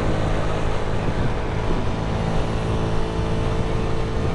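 Honda CG 125's single-cylinder four-stroke engine running steadily at highway cruising speed, with wind and road noise from riding.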